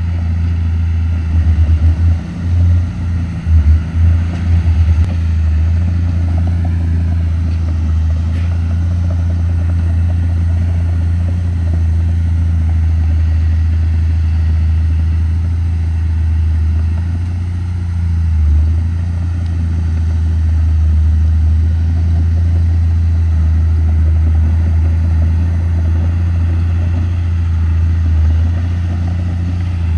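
Diesel engine of a Komatsu D31P crawler bulldozer running steadily with a deep drone, its level rising and falling rapidly for a few seconds near the start.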